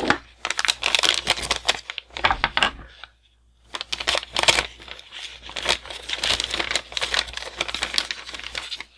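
Thin clear plastic bag crinkling and rustling as it is handled and cut open with a hobby knife, with a short pause about three seconds in.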